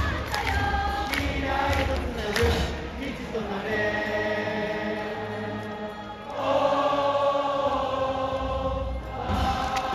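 Baseball cheering section singing a cheer song in unison, backed by a brass band and drums. Drum hits and moving notes come first, then long held chords, the loudest starting about six and a half seconds in.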